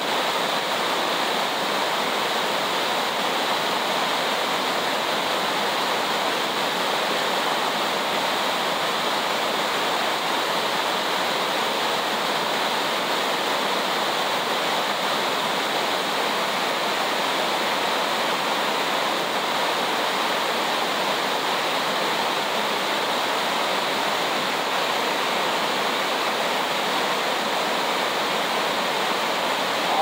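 Water pouring in a sheet over a weir and churning into white water below: a steady, even rush with no change throughout.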